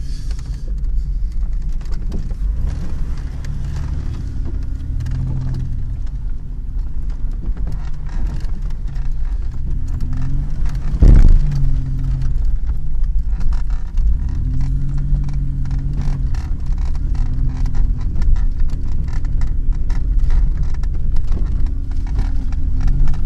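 Ford Explorer's engine heard from inside its cabin, revs rising and falling again and again as it crawls over a rough, muddy off-road track, with cabin rattles and knocks from the bumps. A single loud thump comes about eleven seconds in.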